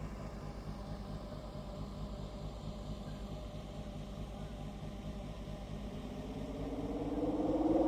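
Vehicle engine running with a steady low pulsing note, then a rising engine note that grows louder over the last couple of seconds as it speeds up.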